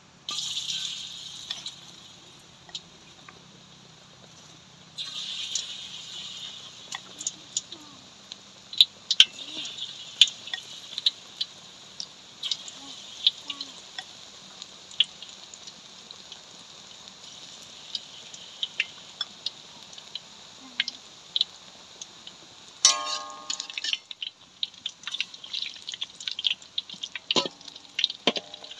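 Battered green eggplant slices deep-frying in hot oil in a wok: a steady sizzle with many crackles and pops, surging as spoonfuls of batter go in near the start and again about five seconds in. Near the end a metal spatula rings briefly against the wok and scrapes through the oil.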